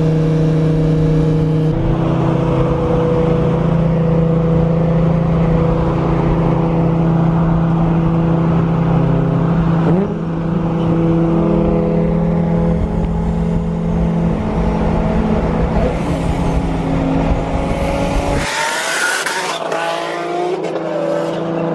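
Car engine and exhaust running hard at high, steady revs during a street race. Its pitch steps at a couple of points, with a short rising glide about halfway through. Near the end the engine note drops away under a loud rush of hiss.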